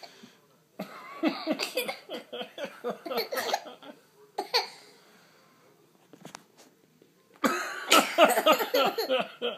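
A person with the hiccups: sharp, sudden hiccups about a second in, midway and near the end, the first and last each running into a couple of seconds of laughing.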